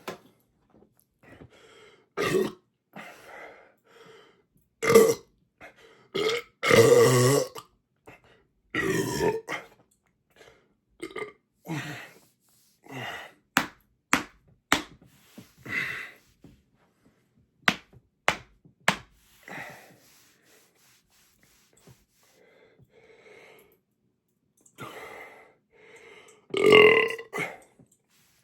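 A man belching again and again from a stomach bloated with quickly gulped soda: a string of separate burps, some short, some drawn out, the longest and loudest about a quarter of the way in and near the end.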